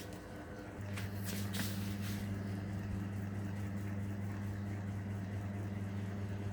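Electric ceiling fan motor running with a steady low hum that gets louder a little under a second in. A few short rustling or clicking noises come in the first two seconds.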